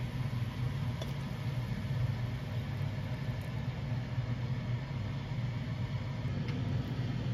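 Kitchen range hood fan running with a steady low hum, with a few light clicks of metal tongs against the frying pan as spaghetti is lifted out.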